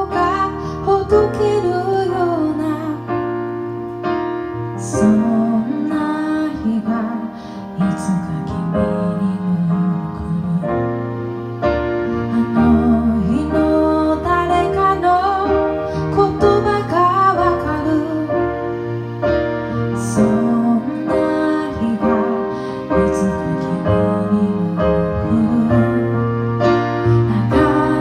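A woman singing a song with piano accompaniment.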